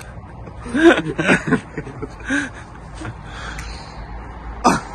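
A man chuckling and laughing in a few short sounds, with one sharp sound near the end. A low rumble of an approaching train grows underneath toward the end.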